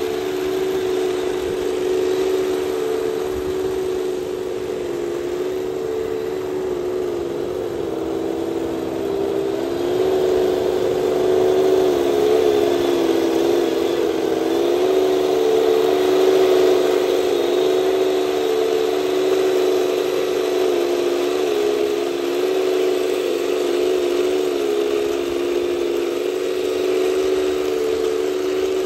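Heng Long 1/16 remote-control Panzer IV F-2 tank running on sand: a steady mechanical drone that wavers and dips slightly in pitch now and then as it drives.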